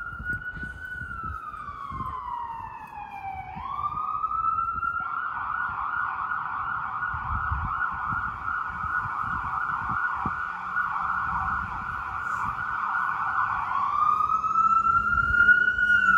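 Emergency vehicle siren sounding: a slow wail rising and falling in pitch, switching about five seconds in to a fast yelp, then rising back into the slow wail near the end.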